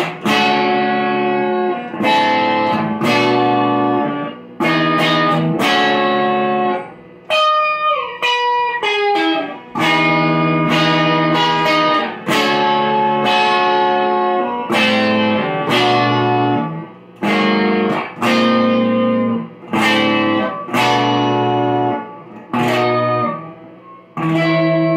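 Fender Telecaster electric guitar playing a chord riff, each chord struck and left to ring for about a second, with a falling run of single notes about a third of the way in.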